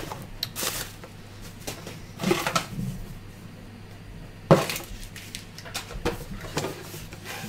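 Handling noises on a desk: scattered clicks, knocks and rustles as packaging and cables are picked up and moved, with the loudest sharp knock about four and a half seconds in, over a faint steady hum.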